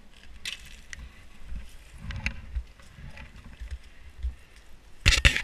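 Climbing gear handled on snow: scattered light clicks and knocks with a low rumble of handling on the microphone, then a loud burst of crunching and scraping near the end.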